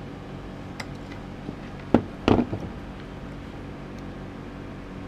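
Steady low hum with a few short sharp clicks and taps, the loudest a pair about two seconds in, from multimeter test probes being pressed against a battery pack's circuit board.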